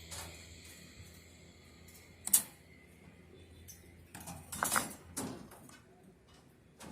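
Metal clinks and clatter from steel reinforcement rods and hand tools during rebar tying: one sharp click about two seconds in, then a short run of rattling knocks a little past the middle.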